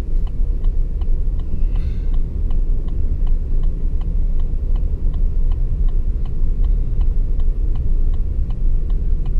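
Low, steady rumble of a car's engine and tyres heard from inside the cabin, with an even ticking about three times a second from the indicator relay.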